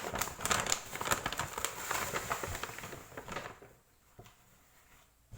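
A shopping bag rustling and crinkling as sandals are pulled out of it, dense crackly handling noise that dies away about three and a half seconds in.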